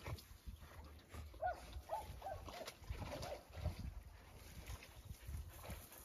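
A Podenco Orito Español hidden in dense brush gives a run of about six short whining yelps, each rising and falling, over a second or two, with twigs crackling around it.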